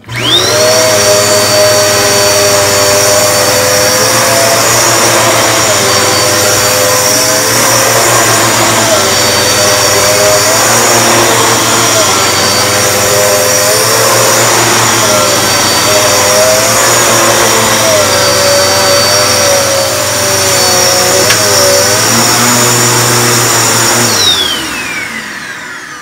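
Dirt Devil Power Max XL upright vacuum cleaner switched on, its motor whine rising to full speed within a second. It then runs steadily and loudly as it is pushed over carpet, its tone wavering now and then. About 24 seconds in it is switched off and the motor spins down with a falling whine.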